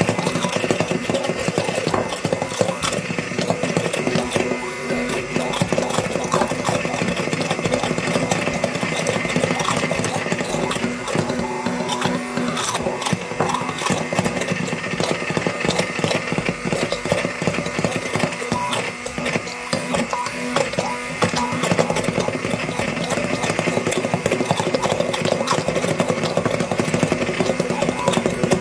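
Handheld immersion blender running steadily in a glass bowl, blending pancake batter, with irregular clicks and knocks over the motor's steady whir.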